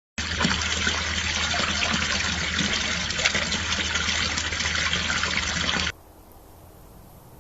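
Water running steadily, starting suddenly and cutting off abruptly about six seconds in, followed by faint hiss.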